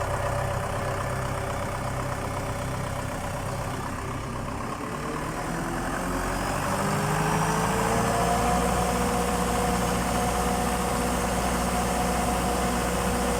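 Diesel generator engine running. About halfway through its pitch climbs over a couple of seconds and the sound gets a little louder, then it holds steady: the engine coming up from warm-up to its normal running speed.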